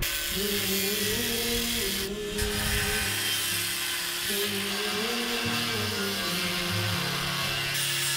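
Background music with a slow melody moving in steps, over a steady high hiss.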